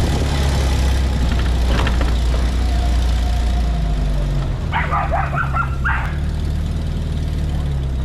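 Vehicle engine idling steadily, with a dog barking several times in a quick run about five seconds in.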